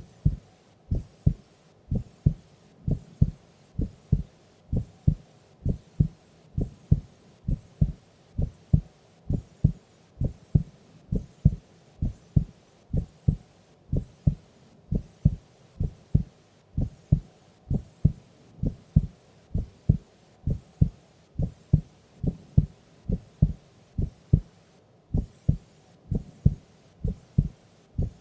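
A sleeping woman's heartbeat: slow, even lub-dub beats about once a second, dull thumps with no high sound in them.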